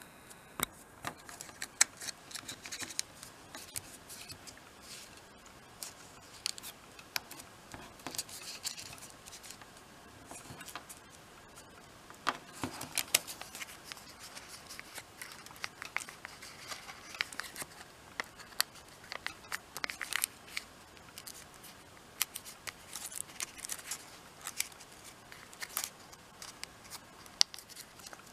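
Origami paper being folded and creased by hand: irregular crisp crinkles, rustles and small snaps as flaps are pressed flat and tucked.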